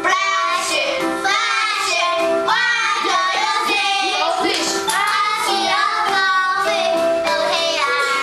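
Children singing a song over musical accompaniment.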